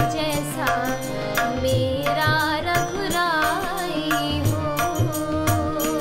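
A woman singing a Hindi Krishna bhajan in a devotional style, her melody gliding and wavering with ornaments, over tabla strokes and steady held instrumental tones.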